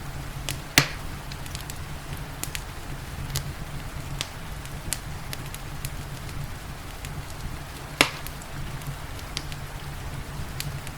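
Wood fire crackling, with scattered small snaps and two loud sharp pops, one about a second in and one near the end of the eighth second, over a steady hiss of rain and a low rumble.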